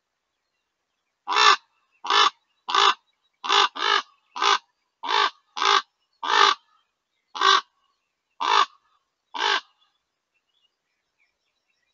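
Common raven calling close by: a series of about twelve short calls, roughly one every three-quarters of a second, starting about a second in. The raven is mobbing a male eagle owl at its day roost.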